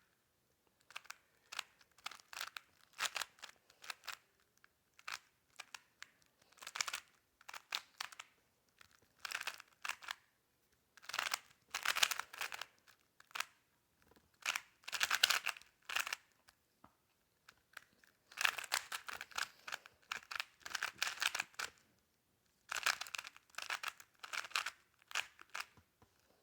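Plastic smart Rubik's cube being turned fast in a speedsolve: rapid clicking and clacking of the layers in bursts of a second or two, with short pauses between bursts.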